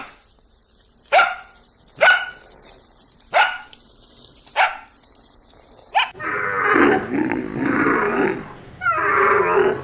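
An animal calling: five short, sharp barks about a second apart, each dropping in pitch, then a long harsh growling call from about six seconds in.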